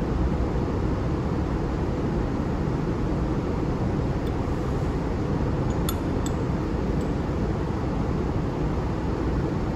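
Light metallic clinks of small steel plates being set down and stacked, a few of them about halfway through, over a steady low rumble.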